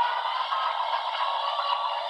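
Class 56 diesel locomotive sound file from a Hornby HM7000 sound decoder, played through a model locomotive's small speaker: the engine runs at a steady note with several held tones and very little bass.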